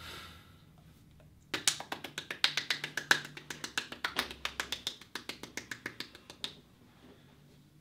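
Light, quick hand claps, a rapid patter of sharp slaps several times a second, beginning about one and a half seconds in and stopping near the end.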